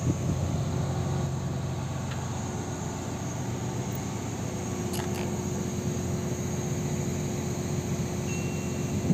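A heavy machine's engine running steadily at idle, a low even hum with a faint steady tone joining about halfway through.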